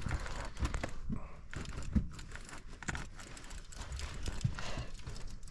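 Fishing reel cranked to bring in a hooked fish, giving a string of irregular sharp clicks over a low rumble.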